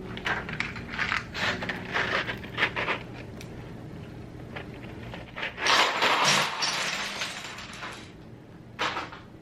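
Plastic keyboard keycaps clicking and clattering as they are handled. About halfway through there is a denser rattle and rustle lasting a couple of seconds, then a single click near the end.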